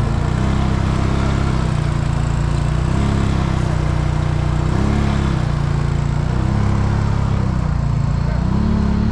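Off-road vehicle engine running under throttle, its pitch rising and falling every second or so as the throttle is worked.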